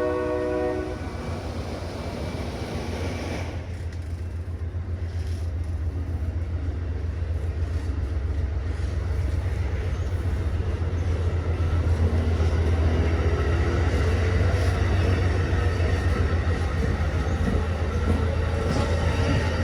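A diesel train's horn cuts off about a second in. The train then passes with a low, pulsing locomotive-and-rail-car rumble that grows louder toward the middle, and faint high squealing tones from the wheels come in during the second half.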